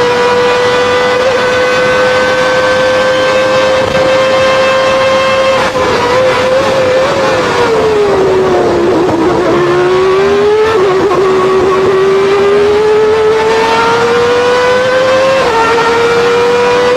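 A McLaren-Honda Formula One engine heard onboard, running at high revs. About six seconds in the revs fall over a couple of seconds as the car slows for a corner, then climb steadily again as it accelerates out.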